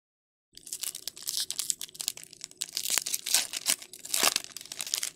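Foil wrapper of a 2024 Bowman baseball hobby pack being torn open and crinkled by hand, starting about half a second in.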